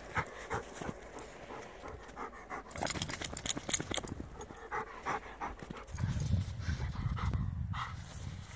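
Dog panting rapidly and heavily, with snow crunching and crackling as it rolls and pushes through it. A low rumble joins in about six seconds in.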